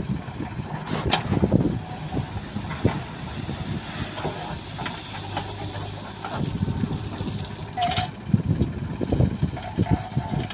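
JCB 3DX backhoe loader's diesel engine running steadily under load as the bucket digs into a pile of stone chips and tips them into a tractor trolley, with irregular crunching and rattling of the stones and a hiss through the middle.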